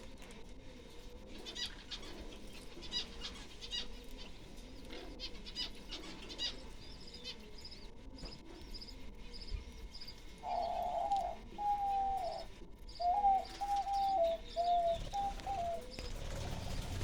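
Caged fancy birds calling: a steady scatter of short, high chirps. About ten seconds in comes a louder run of lower, pitched notes, several of them stepping down in pitch.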